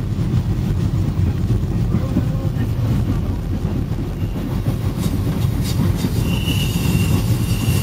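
Train running, heard from on board: a steady low rumble with a couple of wheel clacks about five seconds in, then a steady high-pitched wheel squeal from about six seconds in.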